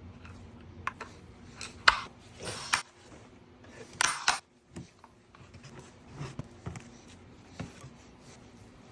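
Metal parts and tools clinking and clattering as they are handled and set down during a power steering pump rebuild. A string of separate sharp metallic clicks, a few with a brief ring, the loudest about two and four seconds in.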